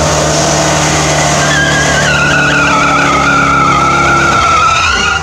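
Car engine held at high revs in a burnout, with the rear tires spinning and squealing from about a second and a half in. The engine note drops away near the end.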